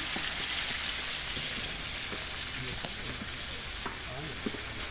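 Pork pieces frying in lard in a large pan, with a steady sizzling hiss and a few sharp pops, while the water from the meat is still cooking off.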